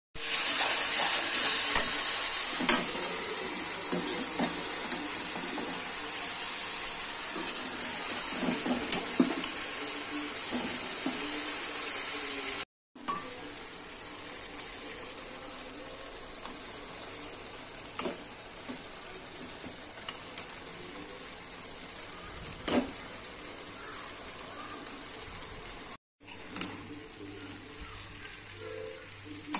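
Vegetables, paneer and noodles sizzling as they are stir-fried in a kadhai, with a steel spatula stirring and scraping and now and then clicking against the pan. The sizzle is loudest in the first dozen seconds and breaks off abruptly twice, about 13 and 26 seconds in.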